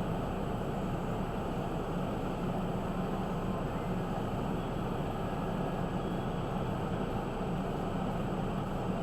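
Steady low drone of a vehicle driving, heard from inside the cab: engine and road noise at an even level throughout.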